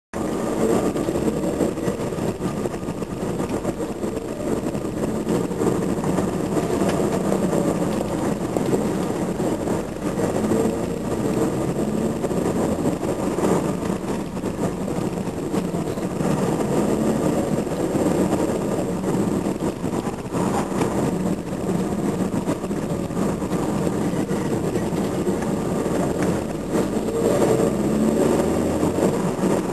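A car being driven, heard from inside the cabin: steady engine and road noise at cruising speed, with no sharp events.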